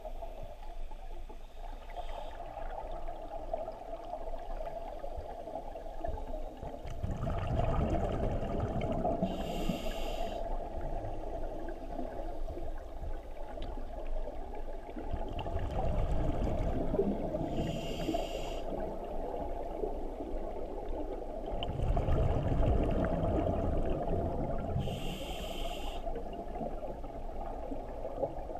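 A scuba diver breathing through a regulator underwater. There are three breath cycles about seven to eight seconds apart, each a rumble of exhaled bubbles ending in a short hiss of inhaled air.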